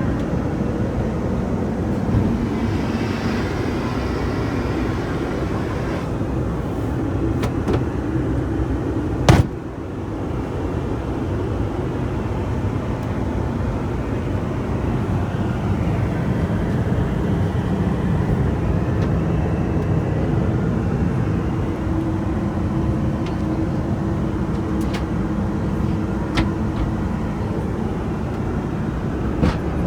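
Steady cabin drone of an Airbus A321 in flight, the noise of its CFM56 engines and airflow, with one sharp click about nine seconds in.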